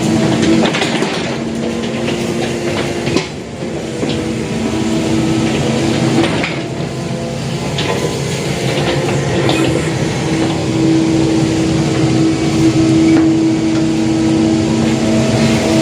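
Excavator running, with a steady engine hum, a whine that grows stronger past the middle, and scattered metallic knocks.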